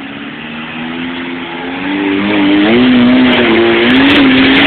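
Four-cylinder 4x4 engine revving hard under load as it climbs a rock ledge, its pitch wavering up and down and getting louder about two seconds in.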